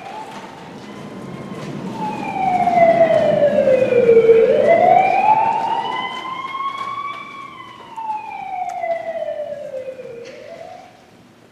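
Emergency-vehicle siren sound effect wailing, its pitch slowly rising and falling twice before it fades out near the end.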